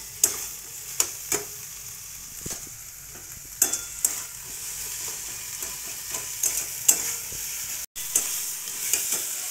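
Potatoes and lentil bori frying in oil and mustard paste in a metal kadai, sizzling steadily, while a metal spatula stirs them, scraping and clinking against the pan about once a second.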